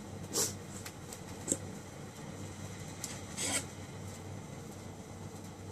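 Handling noise: a few brief soft rubs and a small click over a low steady hum.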